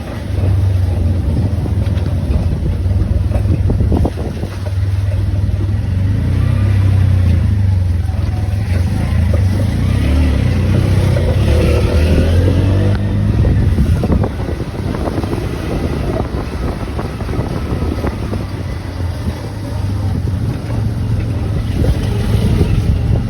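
A vehicle driving: steady low engine and road rumble, with wind buffeting the microphone.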